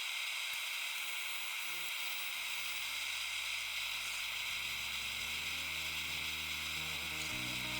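Steady hiss of the forge heating the kukri blade's edge before the quench. Low background music comes in about two and a half seconds in.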